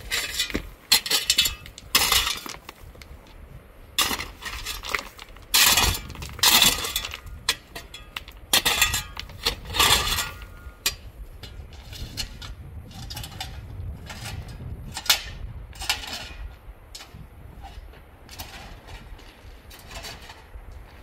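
A hand pick striking stony ground, metal clinking and scraping on rocks as it breaks up the soil. The strikes come irregularly, loudest in the first half, then turn into lighter, quicker clinks.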